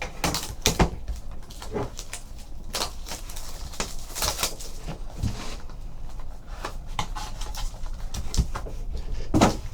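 Trading card boxes and pack wrappers being handled and opened: scattered crinkling, tearing and small taps, on and off.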